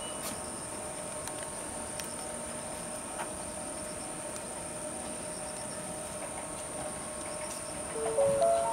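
Steady high insect trill over a faint hum from an approaching Kintetsu electric train. Near the end a short whine rises in steps as the train's traction motors are heard, the loudest sound here.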